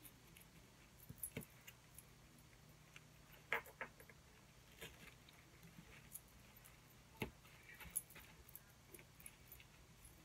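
Faint rustling and scattered clicks of artificial flowers being handled and their stems pushed into a styrofoam wreath ring, with a few sharper clicks spread through.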